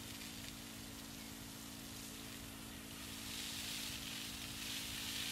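Water spraying from a garden hose nozzle onto a vegetable bed: a steady hiss that grows louder about three seconds in.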